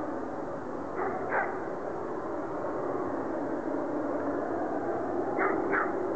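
Steady distant roar like a jet engine that just goes on and on, its source unidentified. Two pairs of short animal calls cut through it, about a second in and again near the end.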